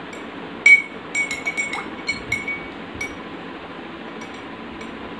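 Metal spoon clinking against the side of a drinking glass while stirring colouring into water: a quick run of light, ringing clinks over the first three seconds, then only a steady background hiss.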